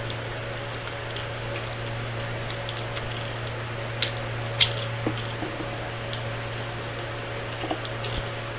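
Steady background hum with a few light clicks and taps, about five spread through the second half, from small parts being handled during a shop vac wheel repair.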